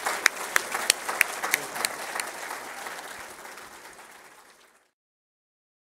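Audience applauding, a few loud nearby claps standing out from the rest. The applause fades away and stops about five seconds in.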